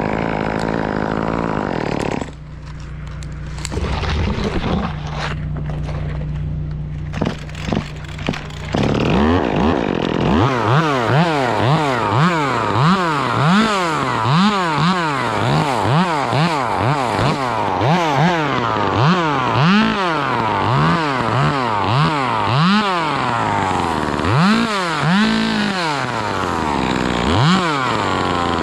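A two-stroke chainsaw runs steadily at high revs for about two seconds, then drops to idle with a few knocks. From about ten seconds in it is revved up and down over and over, roughly once a second, as it cuts in short bursts.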